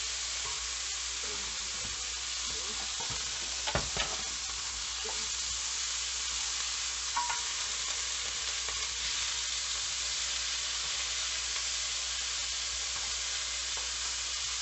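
Strips of beef sizzling steadily in hot olive oil in a cast-iron pan as they brown, stirred with a wooden spoon. A few short knocks of the spoon against the pan come about four seconds in, with another a few seconds later.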